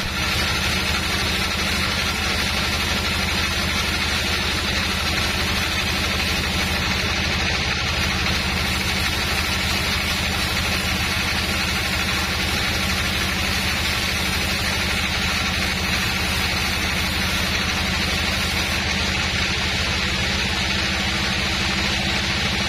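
Large sawmill band saw running steadily while its blade rips lengthwise through a thick slab of old teak, with a constant low hum under the noise of the cut.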